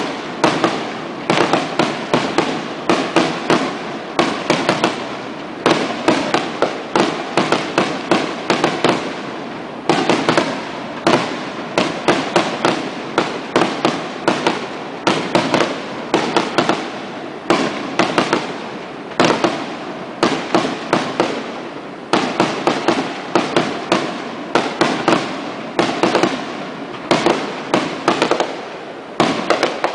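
Aerial fireworks display: rapid volleys of shell bursts and crackling reports, coming in dense clusters with short lulls every few seconds.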